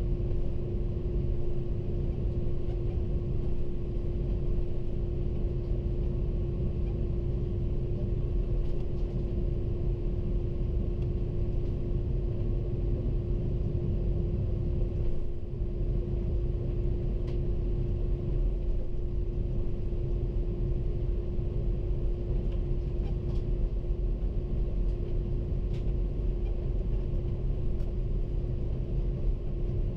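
Steady cabin rumble inside an Airbus A330-300 airliner, with one constant droning hum over the low roar and no change in pitch or level.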